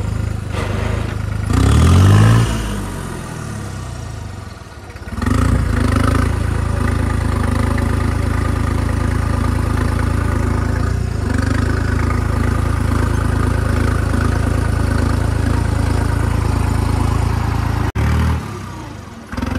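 New Holland tractor's diesel engine, revved briefly about two seconds in, then running steadily as the tractor is driven, and stopping suddenly near the end.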